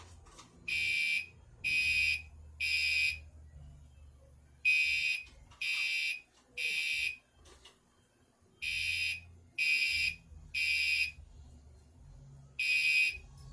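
Gentex Commander 3 fire alarm horn sounding the temporal code 3 evacuation pattern: three half-second blasts about a second apart, then a pause, repeated. Three full rounds sound, and a fourth begins near the end.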